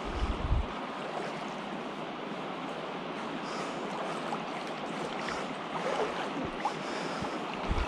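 Steady rush of a shallow river flowing over stones, with a short low thump on the microphone right at the start.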